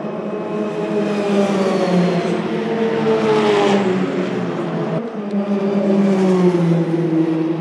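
Single-seater formula race cars passing at speed, engines at high revs, each engine note dropping in pitch as the car goes by. Two passes: the first loudest about halfway through, the second near the end.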